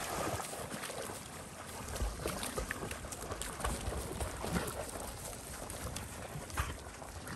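Several dogs wading and splashing in the shallow, muddy edge of a lake, with irregular small splashes and wind rumbling on the microphone.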